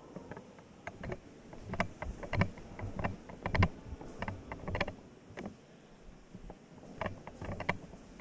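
Handling noise from a 360° camera being picked up and carried: irregular clicks and soft knocks, with a busier stretch in the first half and a few more knocks near the end.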